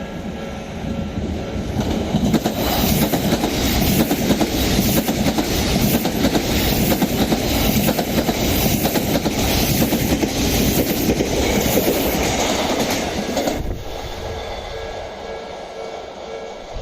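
Odakyu 60000-series MSE Romancecar electric train passing close by at speed: a loud rush with a regular clatter of wheels over rail joints, building over the first two seconds and cutting off abruptly about three-quarters of the way through as the train clears. A level crossing's warning bell rings steadily underneath and is heard alone afterwards.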